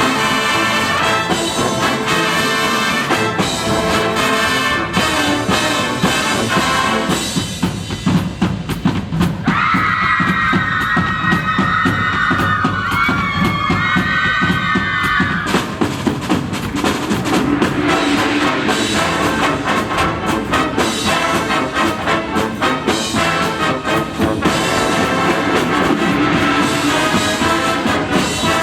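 High school marching band of brass and percussion playing a piece. About seven seconds in it thins to a drum-driven passage, then a high melodic line runs over the drums for some five seconds before the full band with low brass comes back in.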